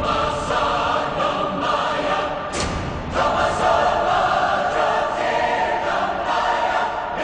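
Background music with a choir singing sustained, chant-like lines; a sharp percussion hit about two and a half seconds in, after which the choir swells.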